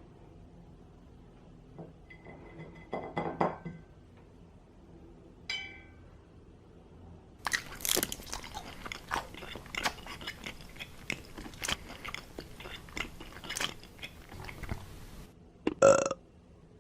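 Close-up crunching and chewing of a bite of food, a dense run of crisp crackles for about eight seconds, with a few softer handling sounds before it and a short loud burst near the end.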